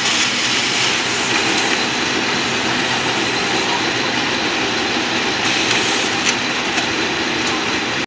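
Silage baler-wrapper machine running steadily while its wrapper turns a round bale and winds it in stretch film, with a few light clicks in the last few seconds.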